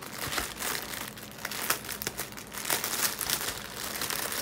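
Small plastic bags of diamond-painting drills crinkling as they are handled, with many irregular crackles.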